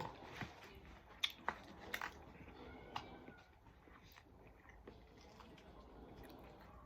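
Chewing and wet mouth clicks of someone eating a saucy chicken sandwich, with a few sharp smacks in the first three seconds, then faint, quieter chewing.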